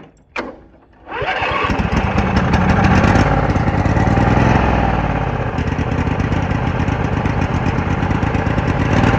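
Two clicks, then a lawn mower engine catches on its electric starter about a second in and runs steadily and loud with the choke on. The engine runs too fast, which the owner thinks is a governor problem.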